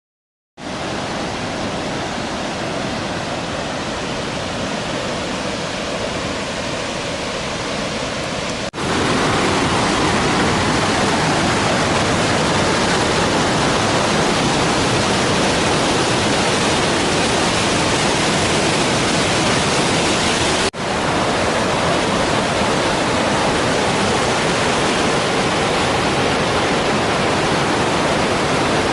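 Large waterfall, a loud steady rush of falling water. It gets louder all at once about nine seconds in, with another brief break about twenty seconds in.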